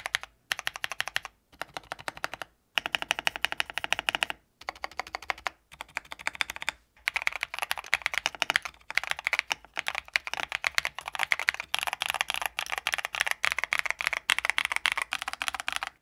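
Typing on a Feker IK75 mechanical keyboard with factory-lubed switches: rapid keystroke clacking, in short bursts with brief pauses at first and nearly continuous in the second half. The switches sound a little bit scratchy, and the case is a slightly louder one.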